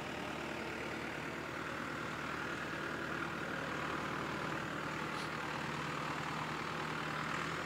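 Farm tractor engine running steadily under load as it pulls a ditcher blade through the soil.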